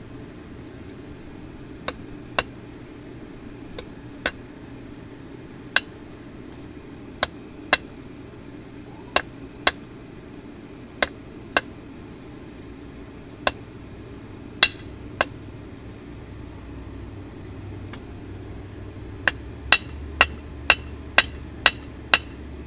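Hand hammer striking hot steel on a chain-wrapped steel anvil as a cold chisel's tip is forged down toward a narrow point. Sharp ringing strikes come singly or in pairs every second or two, then a quick run of about seven blows, roughly two a second, near the end. A steady low hum runs underneath.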